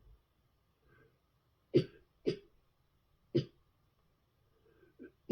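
A person coughing hard: two harsh coughs in quick succession, a third about a second later, and another beginning right at the end.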